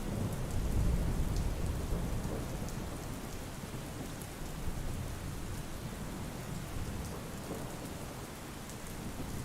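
Steady rain with a long, low rumble of thunder, loudest about a second in and slowly easing off.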